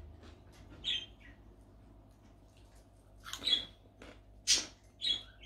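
Crunching and chewing of crispy kerupuk crackers close to the microphone: four or five short, crisp crunches spaced out over a few seconds, the loudest near the end.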